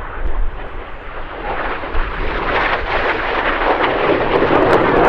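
Red Arrows BAE Hawk T1 jets passing low and fast, their jet noise building from about two seconds in to its loudest near the end, with a crackling edge.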